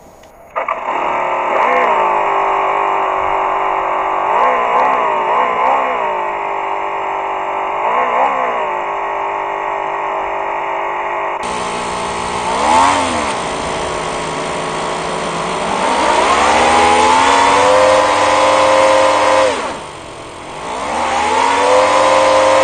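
TOYAN FS-L200A twin-cylinder four-stroke model engine starting up about half a second in. It idles with short throttle blips that rise and fall in pitch, then gives longer revs held high for a few seconds, dropping back to idle and revving again near the end.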